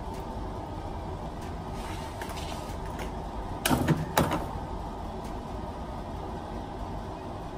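Steady hum of a running air conditioner, with a faint steady tone in it. About halfway through, two sharp knocks come close together.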